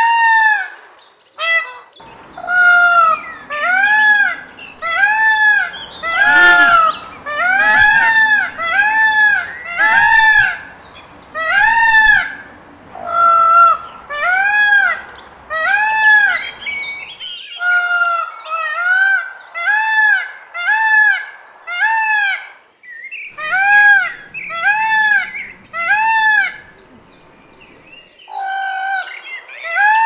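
Peacock (male Indian peafowl) giving a long series of loud honking calls, each a short cry that rises and falls, about one a second, with a few brief pauses.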